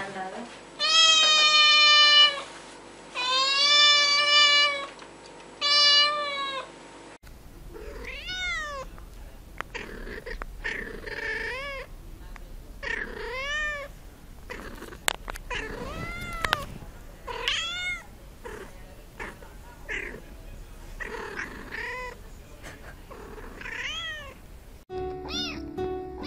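Domestic cats meowing. First come several long, drawn-out meows, each held for about a second or more. After that a second cat gives a run of short meows, each rising and falling, about one a second.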